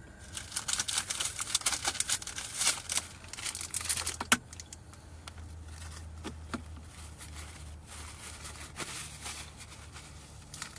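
A plastic snack wrapper crinkling and rustling as it is handled, densest in the first few seconds, then a few separate crackles, over the steady low hum of a car's air conditioning.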